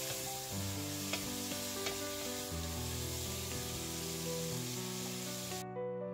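Shrimp and vegetables sizzling in a hot steel pot as they are stirred with a wooden spoon, with two light knocks of the spoon. The sizzling cuts off suddenly near the end.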